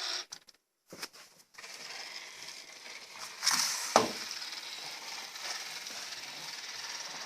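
Robot vacuum cleaner running with a steady whirring hiss. The sound cuts out briefly about half a second in. Around three and a half seconds in there is a louder scrape, followed by a single sharp knock.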